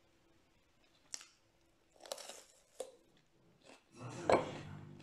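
Close-up chewing of raw red pepper: a few separate crisp crunches, getting louder near the end with one sharp loud crunch.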